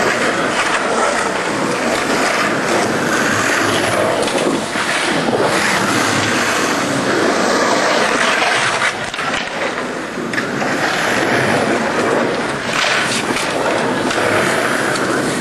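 Skateboard wheels rolling on the concrete of an empty pool: a steady, unbroken rumble, with a few sharper hits of the board or trucks.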